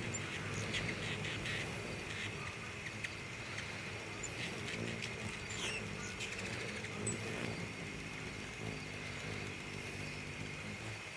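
Hummingbirds buzzing around, a low wavering hum of their wings with many short, high chip notes. A steady high drone runs underneath.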